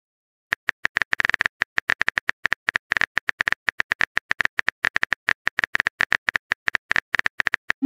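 Typing sound effect: a rapid, irregular run of keyboard clicks, starting about half a second in and stopping just before the end, the sign of a chat message being typed out.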